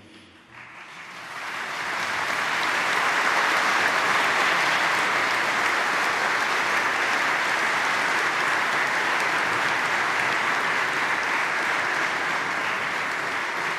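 A large seated audience of nuns and clergy applauding. The clapping builds up over the first two seconds, then goes on steadily.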